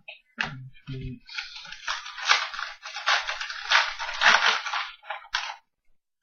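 Crinkling and rustling of plastic or foil card packaging as trading cards are handled and unwrapped, after a couple of soft thumps in the first second.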